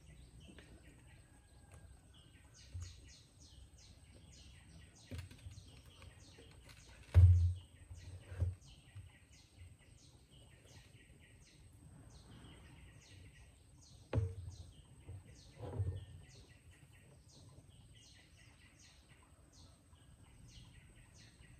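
Birds chirping over and over, with a few dull knocks on the wooden ladder and tower platform as a plastic water tank is carried up and set down. The loudest knock comes about seven seconds in, and there are two more near fourteen and sixteen seconds.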